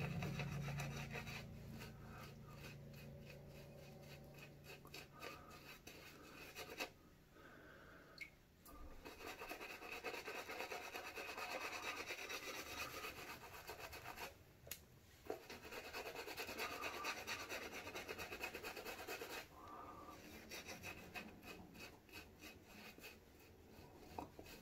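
A badger-hair shaving brush scrubbing thick shaving-soap lather over several days' stubble: a faint, fast, steady rubbing that stops briefly a couple of times.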